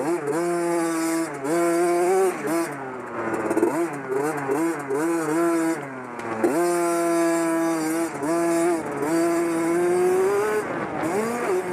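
Dirt bike engine revving hard around a motocross track, its pitch climbing and falling again and again with the throttle. About six and a half seconds in it drops sharply and climbs back up.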